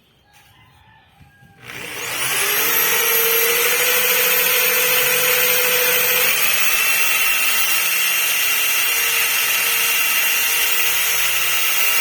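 Homemade right-angle drill built from an angle grinder's gear head starting up about two seconds in, its whine rising as it spins up, then running steadily at high speed in a test drilling of 5 mm steel plate. Its pitch settles slightly lower about six seconds in.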